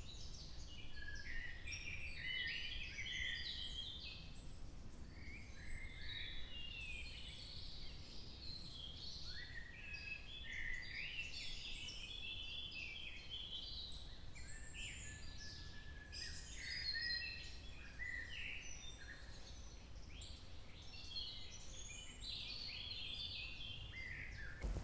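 Several forest birds singing at once, a continuous chorus of overlapping chirps, trills and short whistled phrases, over a steady low rumble of outdoor background noise.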